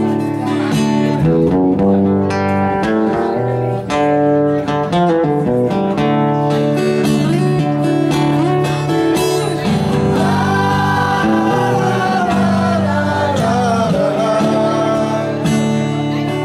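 Live acoustic guitar music: strummed chords ringing steadily, with a wavering melody line rising over them about ten seconds in.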